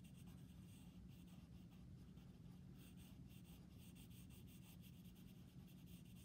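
A red colored pencil scratching faintly on paper in quick, even back-and-forth shading strokes, about three or four a second.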